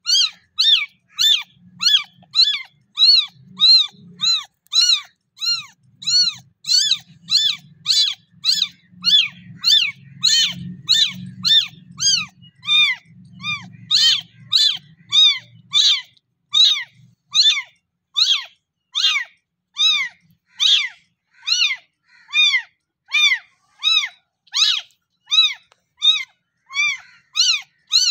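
A very young kitten meowing over and over, short high-pitched calls that each rise and fall, about three every two seconds: a hungry kitten crying for milk.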